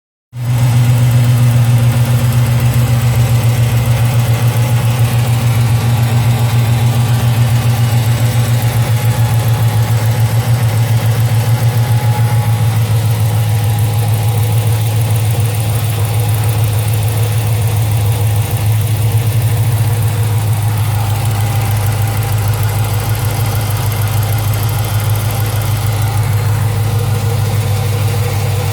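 6.1-litre Hemi V8 of a 2007 Chrysler 300 SRT8 with long-tube headers, idling steadily with a tick that the owner cannot place between a lifter and an exhaust leak.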